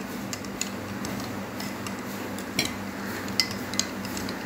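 A steel spoon stirs thick coconut milk in a glass tumbler. Its edge clinks against the glass now and then, in a few irregular sharp ticks.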